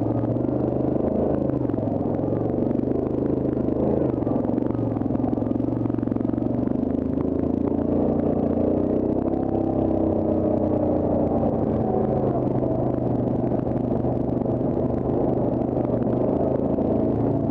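Yamaha Grizzly ATV's single-cylinder engine running at low speed under light throttle, its pitch rising and easing a little around the middle as the quad crawls over rock.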